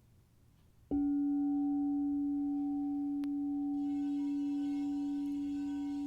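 Crystal singing bowl struck about a second in, then ringing one steady, sustained tone. A second, fainter tone joins about four seconds in.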